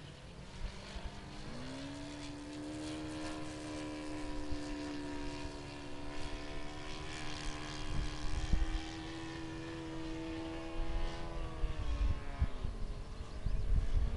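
Radio-control aerobatic model airplane's motor and propeller buzzing overhead at a steady pitch. The pitch jumps up about a second and a half in and drops away near the end, over a low rumble.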